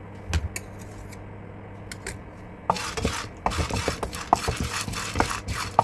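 A spatula stirring roasted chana (gram) in a dry pan. The hard grains scrape and rattle against the pan, a few clicks at first, then dense stirring from about halfway through.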